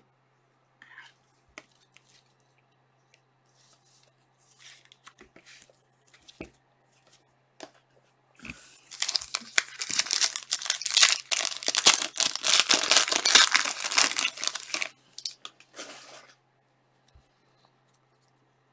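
A foil trading card pack being torn open, its wrapper crinkling and crackling for about six seconds. Before it come a few quiet rustles and light clicks of cards being handled.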